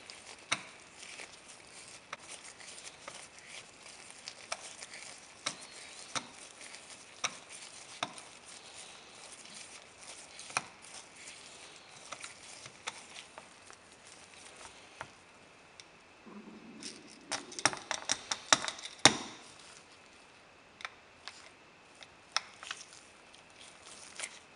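Screwdriver turning a grip frame screw out of a Colt Open Top revolver: quiet, scattered clicks and scrapes of the blade in the screw slot and the metal frame being handled. About seventeen seconds in comes a quick flurry of louder clicks and clatter.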